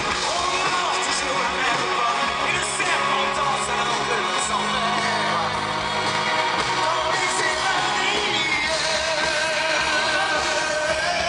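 Live rock band playing with a male lead singer singing over it, picked up from the audience in a concert hall.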